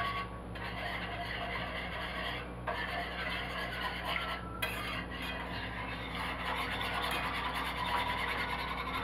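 Wire whisk stirring brown gravy mix into liquid in a nonstick frying pan, mixing the powder in so the gravy can thicken.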